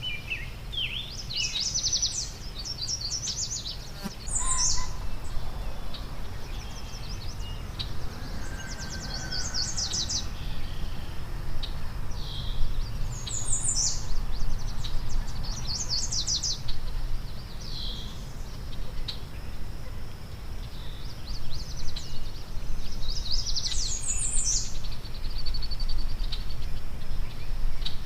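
Wild songbirds singing in quick trilled phrases that come every few seconds, over a steady low background rumble, with a single sharp click about four seconds in.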